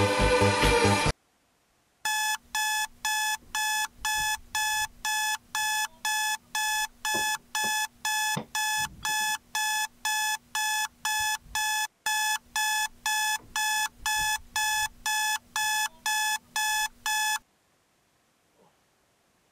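Electronic dance music cuts off about a second in. After a moment of silence, a phone alarm beeps about twice a second, each a short bright electronic tone, then stops abruptly near the end as it is switched off.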